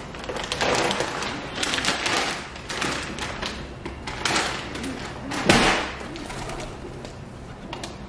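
Feral pigeons flapping their wings as they take off and land on a metal fire escape, a series of short wing flurries with the loudest about five and a half seconds in, over light taps and ticks of feet and beaks on the metal.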